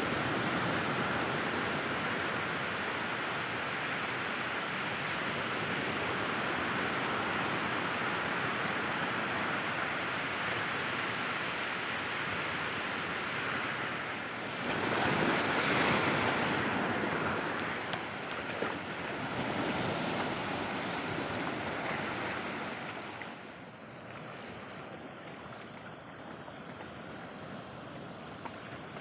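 Steady rush of surf and wind. It swells louder about halfway through and eases off near the end.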